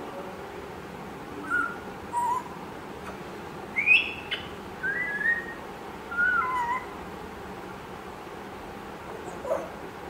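Young African grey parrot giving about half a dozen short whistles and chirps, spaced out, some gliding up or down in pitch; the loudest, about four seconds in, rises sharply.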